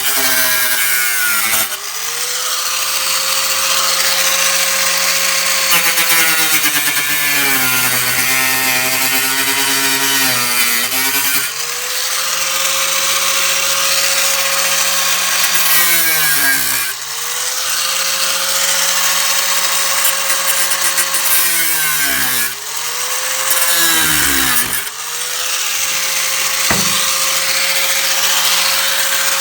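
A handheld power tool's motor spinning up to a steady high whine, sagging in pitch while it bites into the steel, and winding down between runs, about five times over. There is a sharp click a little before the end.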